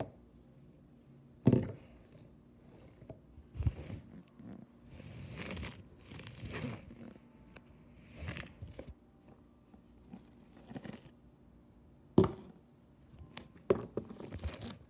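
Jars of slime being handled and set down on a granite countertop: four sharp knocks as jars meet the stone, with scraping and rustling between.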